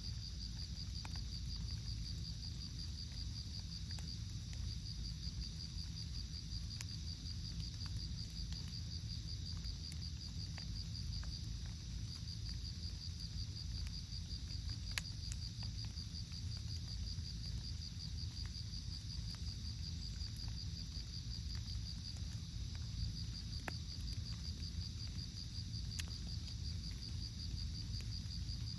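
Insects trilling steadily in a high, fast-pulsing chorus, pausing briefly now and then, over a low steady rumble.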